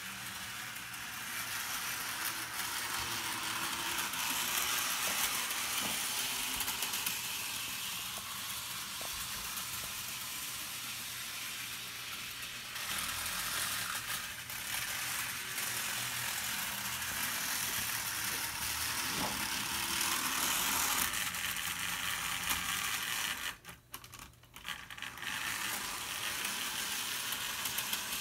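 HO-scale Thomas the Tank Engine model locomotive running around the layout pulling a coal car: the steady whirr of its small motor and its wheels running on the rails. The sound comes up right at the start and dips away for a moment near the end before carrying on.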